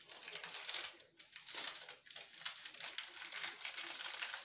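Baking paper crinkling and rustling as it is wrapped and rolled around a log of biscuit dough, with two brief pauses.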